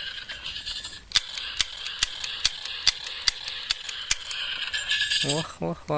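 Plastic toy pistol's mechanism working: sharp clicks about twice a second over a steady high whirring hiss.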